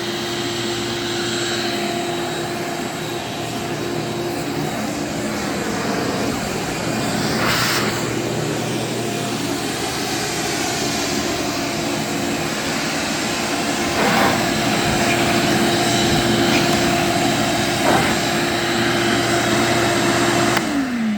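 Craftsman 12-gallon wet/dry shop vac motor running in blower mode: a steady, loud motor whine with rushing air and a few brief knocks, switched off near the end so the pitch falls as the motor spins down.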